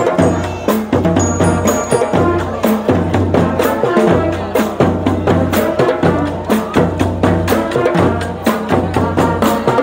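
Marching band playing: brass melody over a steady beat of bass drum and other percussion strikes.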